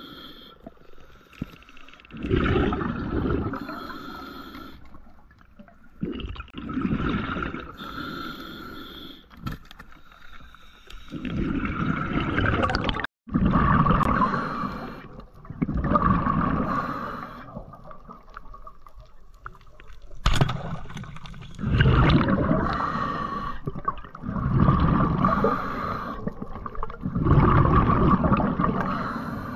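Muffled underwater water noise picked up through a diving camera's housing: swells of rushing water every few seconds over a faint steady hum, with a brief dropout about 13 seconds in.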